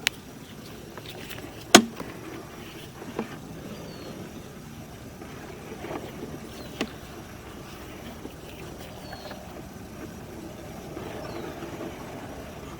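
Sewer inspection camera being pushed into a drain line: a steady low rumble with a sharp knock about two seconds in and a smaller click near seven seconds.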